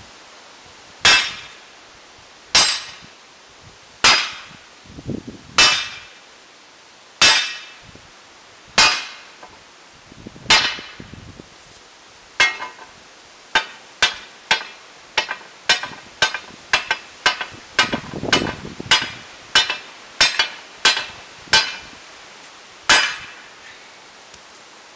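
Hammer blows on a red-hot steel greatsword blade laid on a round steel anvil block, each strike ringing briefly. Heavy blows come about every second and a half, then about halfway a quicker run of lighter blows, about two a second, ends with one last strike.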